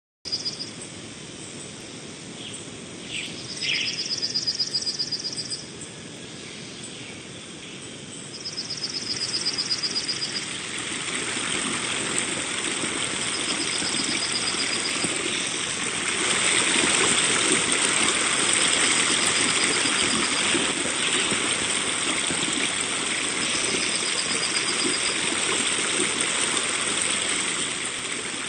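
Birds chirping, with a high trill repeating every few seconds, over running water. The water sound swells about ten seconds in and becomes the loudest sound about halfway through.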